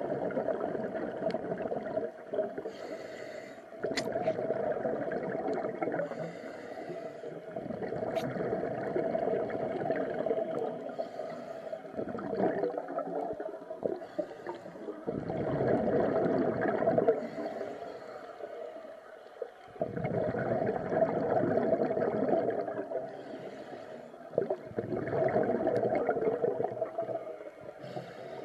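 Scuba diver breathing through a regulator underwater: bubbling exhalations of about two seconds each, repeating every four to five seconds, with a fainter hiss of inhalation in some of the pauses between them.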